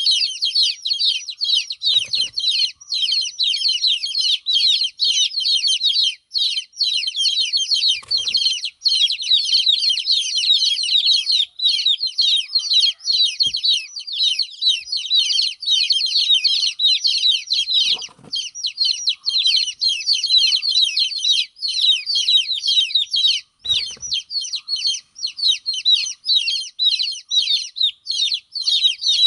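Many baby chicks peeping loudly and continuously, a dense run of short, high, falling calls; these are distress calls, the chicks crying with the mother hen away. A few brief low thumps sound now and then.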